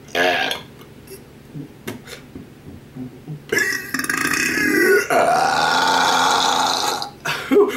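A man doing deliberate, forced burps one after another: a short burp at the start, then after a short pause a long drawn-out burp of about three seconds, and quick short burps near the end.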